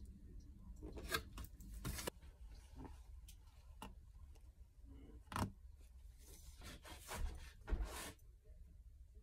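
Faint handling noises of a plastic tray of candy being carried and moved about: a few short knocks and scrapes, the sharpest about five seconds in, with a longer scrape near the end as it goes into the refrigerator.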